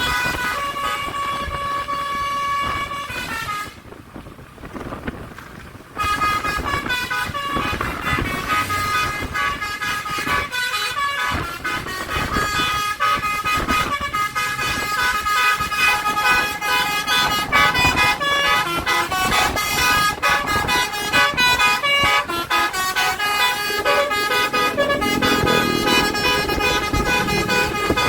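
Tour bus telolet basuri horn, a multi-tone electric air horn, playing a quick melody of stepping notes. It breaks off for about two seconds near four seconds in, then plays on without pause.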